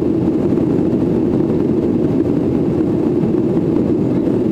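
Steady cabin drone of a Boeing 737-800 heard from inside the passenger cabin as it climbs through cloud: the CFM56-7B engines and airflow blend into an even, low rushing noise with no change in level.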